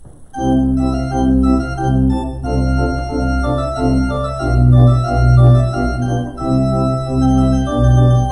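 Church organ starting a postlude about half a second in, right after the dismissal: sustained full chords over a low pedal bass, moving to a new chord every second or so.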